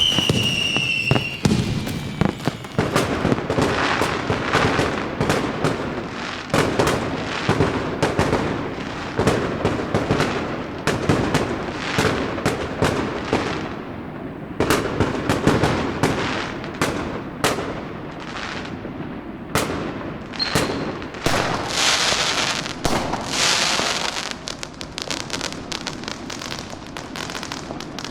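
Fireworks and firecrackers going off in a dense, irregular string of sharp bangs and pops. A falling whistle sounds at the very start, and about three quarters of the way in there is a stretch of hissing crackle.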